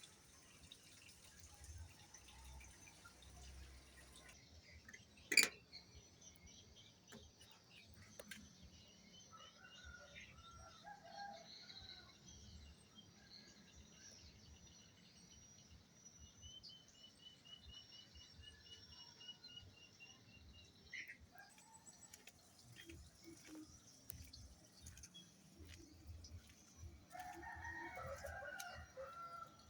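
Faint background with distant bird calls: a rapid trill of high ticks lasting about four seconds midway, and a longer call of about two seconds near the end. A single sharp click comes about five seconds in.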